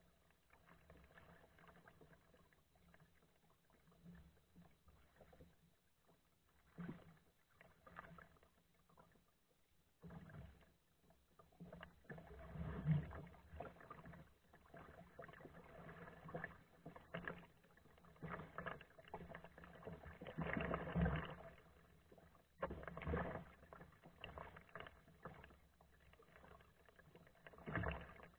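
Kayak paddle strokes in the water: faint, uneven swells of splashing every second or two, loudest around the middle.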